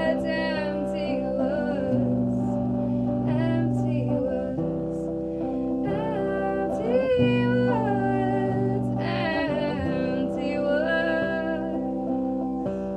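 A woman singing the closing lines of a song to her own guitar; about twelve seconds in her voice stops and the guitar chord rings on, fading.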